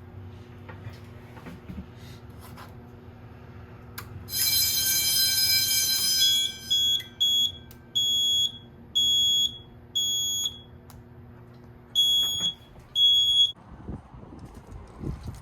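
Edwards addressable fire alarm panel's built-in sounder. About four seconds in it gives a harsh buzzing tone for roughly two seconds, then a run of short, high beeps at uneven spacing that stop before the end. The panel is in an unacknowledged alarm state, left that way so that the beeping stopping will show the system has reset.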